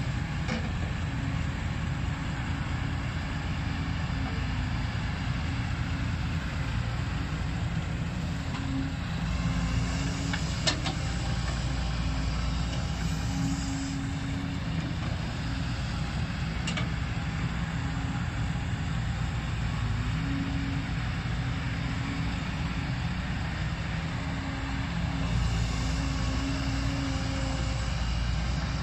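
Kobelco SK140 excavator's diesel engine running steadily under working load as it digs and swings, with a humming note that comes and goes. Two short sharp clanks come about 11 and 17 seconds in.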